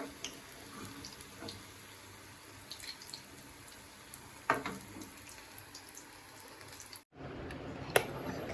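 Pakoras sizzling in hot oil, a steady crackling hiss with small pops and a sharp clink about halfway through. The sound cuts out abruptly near the end and comes back louder.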